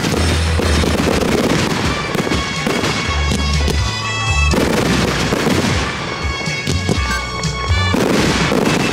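Fireworks display: aerial shells bursting and crackling in quick succession, over loud music with long held notes and a heavy bass.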